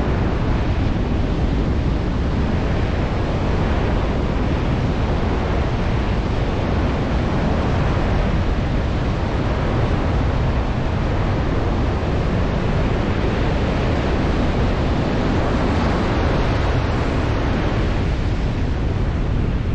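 Ocean surf breaking and washing up a flat, wet sand beach as a steady rush, with wind rumbling on the microphone.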